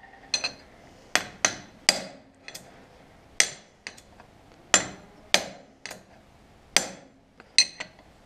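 Hammer striking a steel drift bar held against a tapered roller wheel bearing, driving the bearing onto the Ursus tractor's front axle stub. About a dozen sharp metallic blows come at an uneven pace, some in quick pairs, each with a brief ring.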